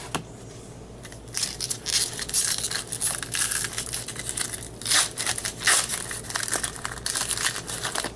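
A 2013 Bowman baseball card pack's wrapper being torn open and crinkled by hand, a dense rustling crackle starting about a second in, with a couple of louder crinkles after the middle.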